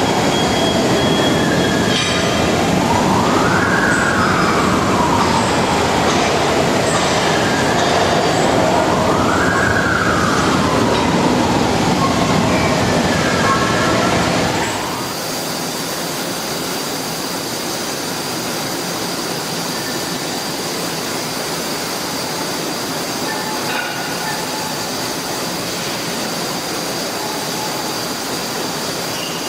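CNC plasma cutting table at work: a loud hiss with a whine that rises and falls in pitch every few seconds. About halfway through it drops to a quieter, steadier hiss with a thin high tone.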